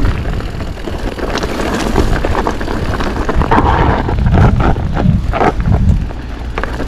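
Commencal Meta TR 29 mountain bike descending a rough trail: wind rumbling on the action camera's microphone, with tyres on rock and dirt, and a run of sharp knocks and rattles from the bike over bumps through the middle.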